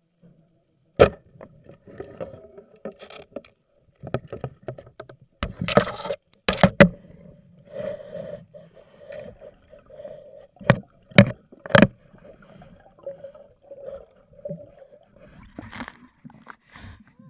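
Sharp knocks and clicks with scraping, heard underwater through the camera, as spearfishing gear and a speared fish are handled. Three loud knocks come close together about two-thirds of the way in, over a steady low hum.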